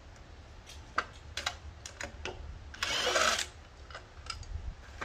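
Scattered clicks and knocks of hands working on the plastic recoil starter housing of a Briggs & Stratton mower engine. About three seconds in, a cordless drill runs briefly as a housing screw is backed out.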